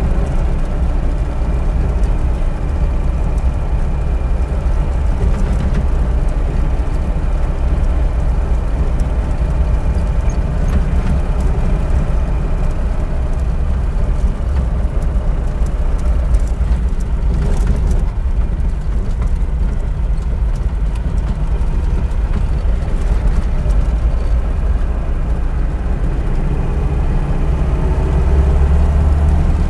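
VAZ-2121 Niva's four-cylinder petrol engine running steadily, its pitch drifting slightly and getting a little louder near the end.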